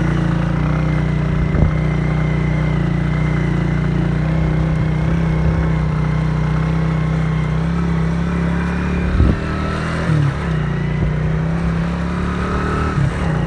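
Motorcycle engine running steadily while under way, its note dipping briefly about nine to ten seconds in and again near the end.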